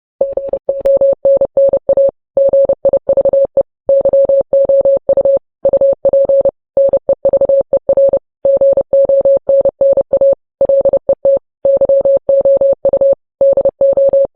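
Morse code beeps: a single steady tone keyed on and off in quick dots and dashes, with short pauses between letters.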